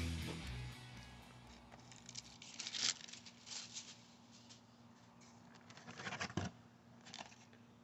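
Background music fading out, then soft, intermittent rustling and crinkling as plastic blister packs and packing paper are shifted inside a cardboard box.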